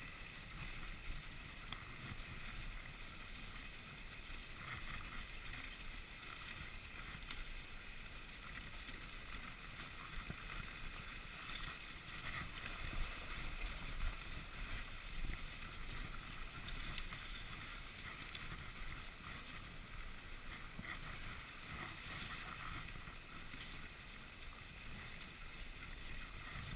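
Dog sled runners sliding over packed snow in a steady hiss as a small dog team pulls the sled along at a run.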